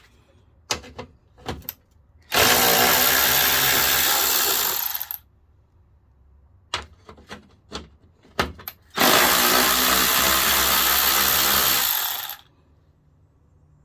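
Power tool with a 10 mm socket running in two long bursts of about three seconds each, backing out two bolts, with a few short clicks of the socket and bolts being handled between the runs.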